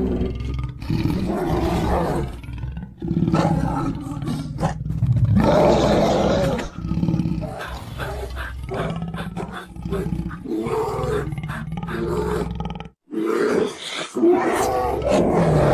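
A run of roar and growl sound effects, one call after another with short gaps between them, and a sudden cut to silence about 13 seconds in.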